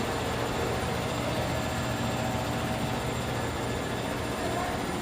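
Steady factory machinery noise with a constant low hum and faint steady tones, from pipe-making machines running.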